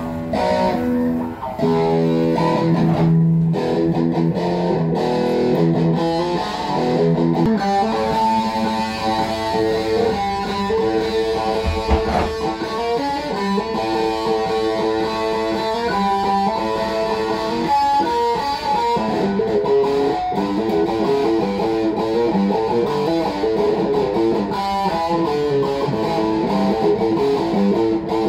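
Electric guitar played through a small combo amp: a lead part of single-note melody lines and quick runs, the notes changing pitch every fraction of a second.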